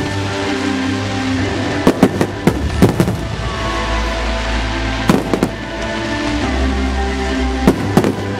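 Aerial fireworks going off in sharp bangs that come in clusters, about two seconds in, again about five seconds in and near the end, over loud music playing along with the show.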